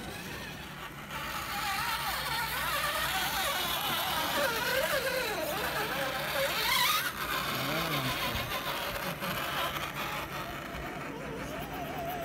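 Electric motor and geared drivetrain of a scale RC rock crawler whining, the pitch rising and falling with the throttle as it climbs over rocks, with a brief louder burst about seven seconds in.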